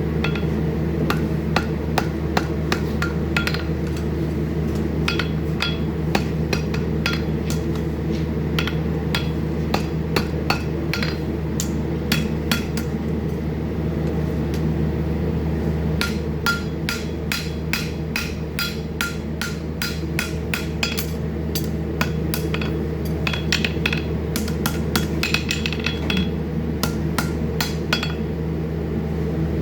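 Farrier's hammer striking a steel horseshoe on metal, many sharp blows with a short metallic ring, irregular and coming in quick runs of a few blows a second, over a steady low hum.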